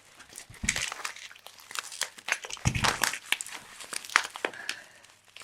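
Bubble wrap and plastic packing being handled, crinkling and crackling in irregular bursts, with two dull thuds.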